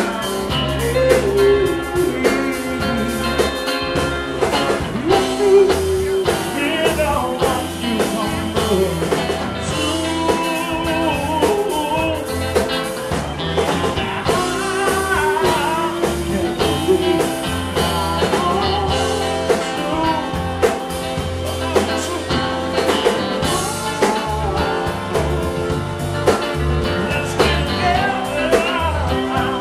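Live blues-rock band playing: drums, electric bass and electric guitar under a sung lead vocal.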